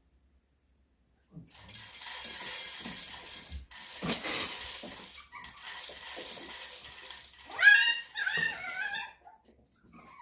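Dry dog kibble rattling out as the food is dispensed, in several long runs. A poodle puppy's shrill, bending cry, the loudest sound, comes about three-quarters of the way through.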